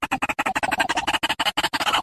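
White-breasted waterhen (ruak-ruak) call: a fast, even stutter of harsh, clicking notes, about fourteen a second.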